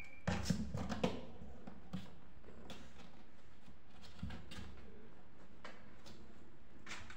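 Kittens scuffling on a sheet-covered board: a cluster of soft knocks and rustles in the first second, then scattered faint taps over a steady hiss.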